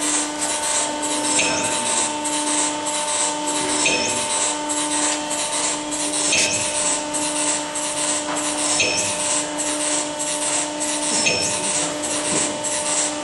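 Barwell ECO5HPlus rubber preforming machine running while preforming silicone O-ring blanks: a steady hum under a hiss of quick repeated strokes, about three a second, with a slightly different stroke about every two and a half seconds.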